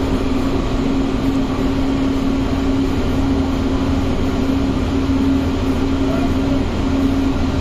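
Inside a Pune Metro train running on the elevated line: a steady low hum over a constant rumble of the moving car.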